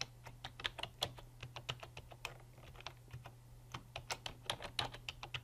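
Typing on a computer keyboard: two runs of quick key clicks with a short pause between them.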